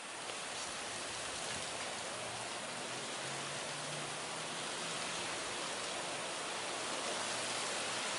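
Steady, even hiss of high wind, cutting in abruptly at the start, with a faint low hum underneath.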